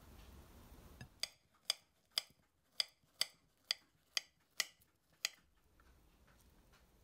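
A run of nine sharp, light clicks or taps, about two a second, that stops about two-thirds of the way through.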